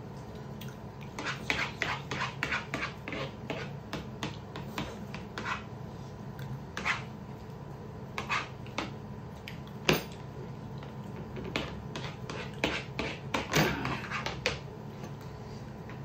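Metal spoons clinking and scraping against dinner plates during fast eating of rice, in quick irregular clicks with a sharper knock about ten seconds in. A steady low hum runs underneath.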